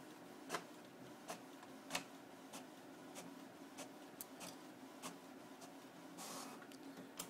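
HP Photosmart Premium inkjet printer printing a page: a faint steady hum with sharp ticks about every two-thirds of a second as the print head and paper feed step along. There is a brief rush of paper movement about six seconds in.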